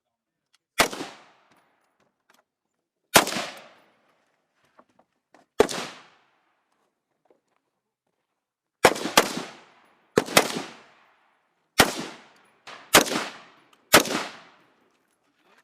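Rifle shots fired singly at an uneven pace, about ten in all, with several coming in quick pairs in the second half. Each shot has a short echoing tail.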